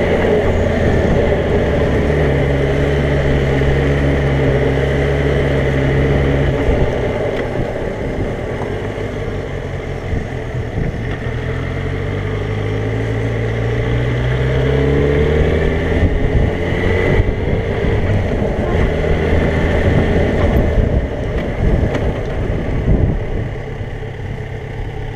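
Motorcycle engine heard from the rider's seat, running at a steady pitch for the first several seconds, easing off, then rising in pitch as the bike accelerates about halfway through.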